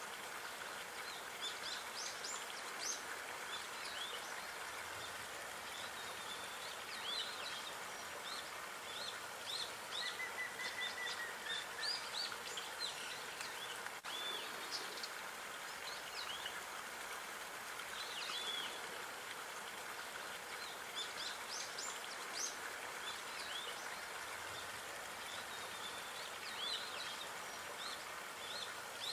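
Small songbirds chirping and calling over and over against a steady background hiss, with a brief steady trill about a third of the way in.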